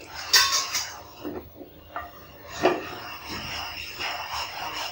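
Wooden spatula stirring and scraping sugar and water in a nonstick frying pan, with a short clatter about half a second in and another sharp knock a little past the middle.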